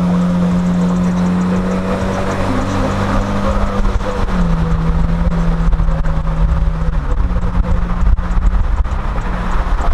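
Road and wind noise inside a moving car, under a steady low hum that drops in pitch about four seconds in and rises again about seven seconds in.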